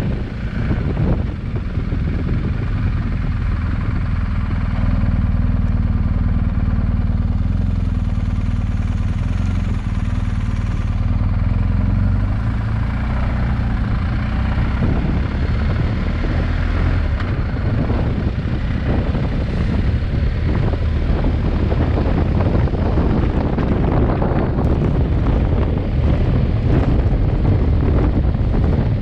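Motorcycle engine running steadily under way, with wind rushing over the microphone. The engine's tone is clearest in the first half; from about halfway the wind noise takes over.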